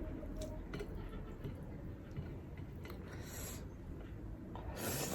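A person eating: chewing and mouth sounds with a few faint clicks, and two brief hissy bursts, one about three seconds in and one near the end.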